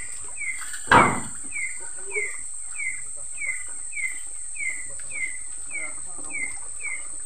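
Night ambience by a river: an animal's short, falling chirp repeated about twice a second over a steady high whine. A splash of water comes about a second in.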